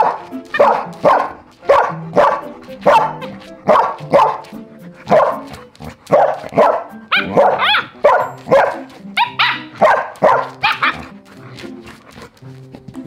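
A dog barking over and over, about two sharp barks a second, the later barks higher-pitched, stopping about eleven seconds in.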